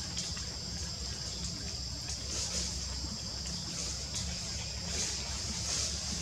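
Steady outdoor forest ambience: a high, hissing chorus that swells and fades every second or so, over a constant low rumble. No monkey calls stand out.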